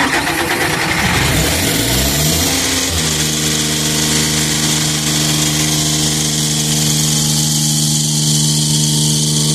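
Engine of a Sullivan portable screw air compressor starting on its test run after an airend rebuild: it cranks and catches, its pitch climbs over the first few seconds, then it settles into steady running from about three seconds in.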